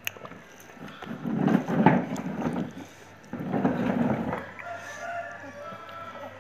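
A rooster crowing: two loud stretches of crowing, then fainter held notes near the end.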